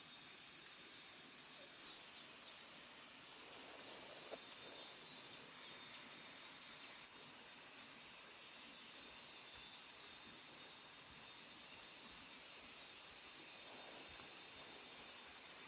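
Faint, steady high-pitched chorus of insects such as crickets or cicadas, with a second, slightly lower band of buzzing growing stronger about twelve seconds in.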